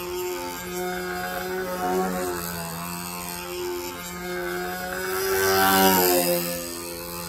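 Control-line stunt model airplane's engine running continuously as the plane circles and loops, its pitch rising and falling as it swings around the pilot. About five and a half seconds in it grows louder and then drops in pitch as the plane passes close.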